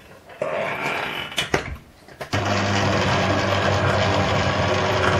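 A few handling knocks as the stand mixer's head is lowered into the bowl, then its electric motor switches on a little over two seconds in and runs steadily with a low hum, the flat beater beating chocolate biscuit dough.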